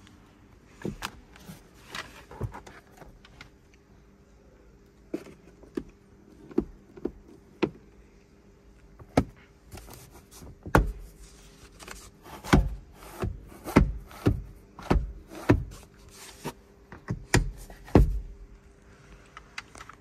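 Sharp plastic clicks and knocks from a car's interior fittings being worked by hand, among them the sun visor and its lit vanity-mirror cover. They come irregularly, a few at first and then more often and louder from about ten seconds in.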